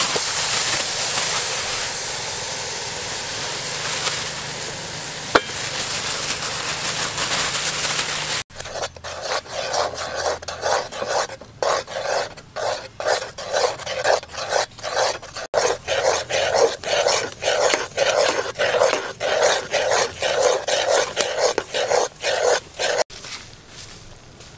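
A thick paste sizzling in a hot aluminium pot, a steady hiss for about eight seconds. Then a metal spoon scrapes and stirs the sauce around the pot in quick, even strokes, a few a second.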